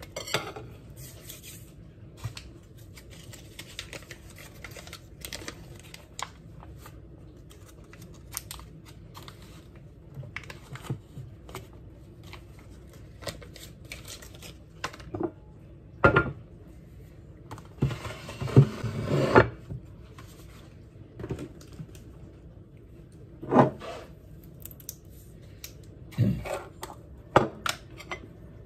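Table knife scraping butter across crumpets on a plate, with a longer scrape about two-thirds of the way through. Light clicks of the knife against the plate and butter dish, and a few sharper knocks of things set down on the counter.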